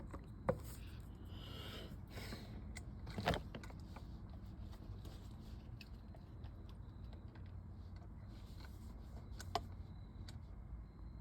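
Handling noise from fitting a steering-wheel quick-release hub: a few sharp clicks and knocks of the parts, the loudest about three seconds in, with some rustling, over a low steady hum.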